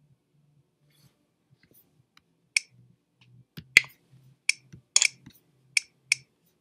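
About eight sharp computer clicks, irregularly spaced and starting about two and a half seconds in, as a quiz answer is selected and submitted. The loudest click comes near the middle.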